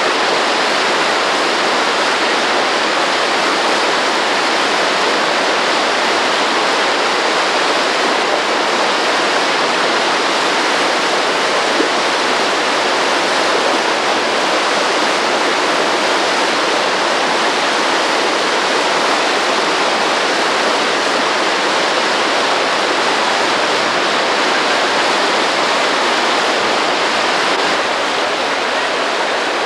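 River water rushing over rocks in rapids: a loud, steady rush with no change.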